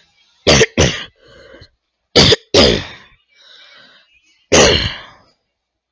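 A person coughing hard in three bouts: two quick coughs about half a second in, two more around two seconds in, and one longer cough near the end, with faint breaths between.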